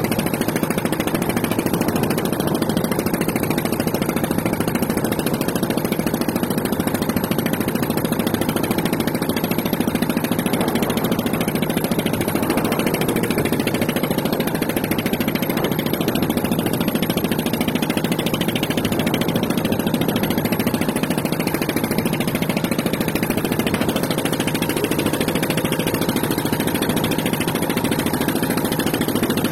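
A motor running steadily at an even speed, an unchanging hum with no starts, stops or revving.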